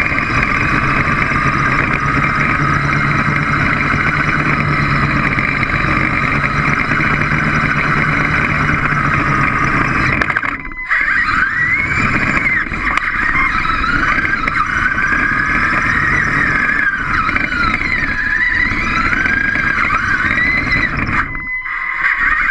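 Small remote-controlled robot's electric drive motors and gears whining as it drives, the pitch rising and falling with its speed. The whine drops out briefly about ten seconds in and again near the end.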